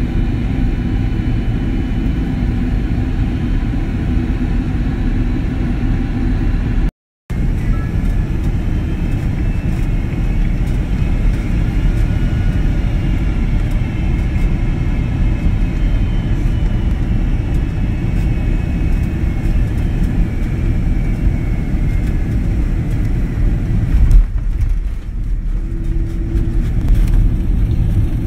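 Airliner cabin noise heard from a window seat: a steady engine and airflow rumble, with a faint whine slowly falling in pitch through the middle. There is a brief cut about 7 seconds in and a loud bump about 24 seconds in.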